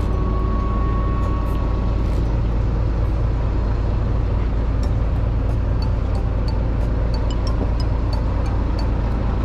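Small fishing boat's engine idling, a steady low rumble. From about halfway, a faint light ticking about three times a second.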